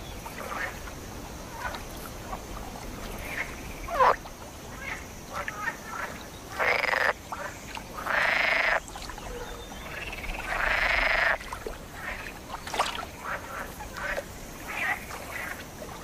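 Chorus of male European green frogs (water frogs) calling for females: many short croaks throughout, with three longer, louder calls in the middle.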